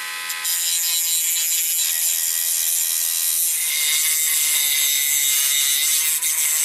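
Dremel rotary tool running at speed and grinding into a 3D-printed plastic part, trimming down a locating key that is too big for its socket. The motor's steady whine is joined about half a second in by a rasping grind that holds steadily, briefly dipping near the end.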